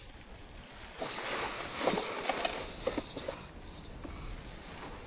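Steady high-pitched insect chirring, like crickets, with a stretch of rustling and a few small clicks from about one to three seconds in.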